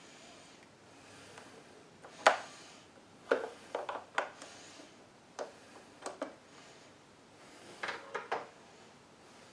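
Scattered clicks and knocks of a wrench and small metal parts being handled as the float bowl is unbolted from a small generator carburetor. The sharpest knock comes about two seconds in, followed by clusters of lighter clinks.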